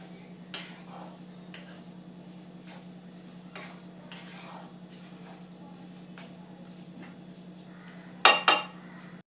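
A wooden spatula stirs a moist grated-coconut and watercress-seed mixture in a nonstick kadai, making soft, irregular scraping strokes over a steady low hum. Near the end come two loud, sharp knocks of the spatula against the pan.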